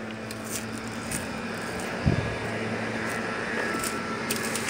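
Steady low hum with the rustle of walking and carrying, one dull thump about two seconds in and a few light clicks near the end.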